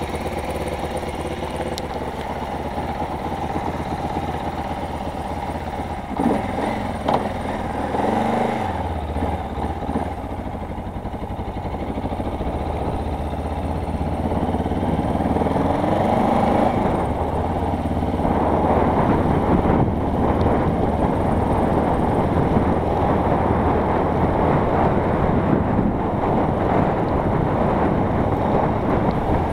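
Kawasaki KLE motorcycle engine idling, then revving and pulling away about six seconds in. It runs steadily and a little louder over the second half as the bike rides along.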